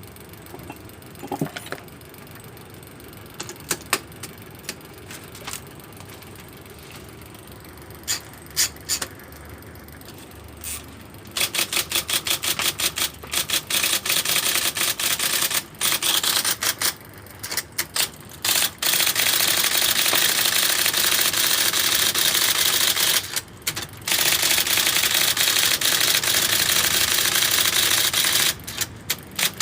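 IBM Selectric III electric typewriter being test-typed: a few scattered key clicks, then from about a third of the way in a fast run of typeball strikes that turns into an almost unbroken rattle, with two short pauses near the end.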